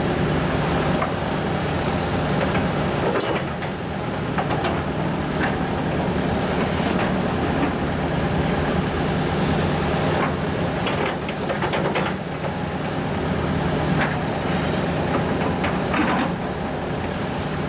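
Hitachi ZX210LC excavator's diesel engine running steadily under load, with a string of short clanks and scrapes from the bucket and arm as it digs.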